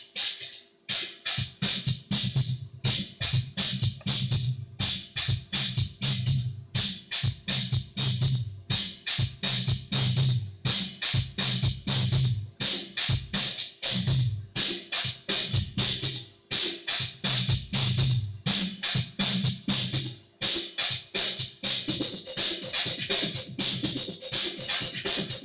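Electronic music with a drum-machine beat and synthesizer playing loudly through a home stereo system; a deep bass line comes in about a second and a half in, and the high cymbal sounds grow denser near the end.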